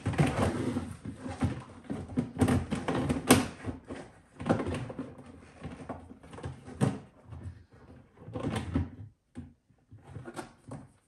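Hollow plastic parts of a portable bucket toilet knocking, clattering and scraping as they are handled and fitted together inside the bowl. The knocks come irregularly, the sharpest about three seconds in, with a short lull near the end.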